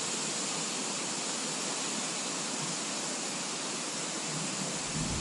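Steady, even hiss of water. A low rumble rises near the end.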